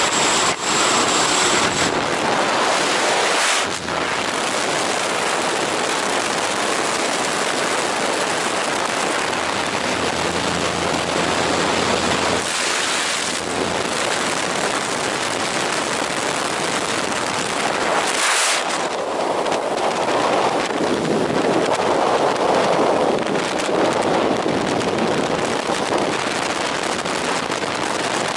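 Loud, steady rushing wind buffeting the camera microphone, from the airflow at the open door of the jump plane and then in freefall.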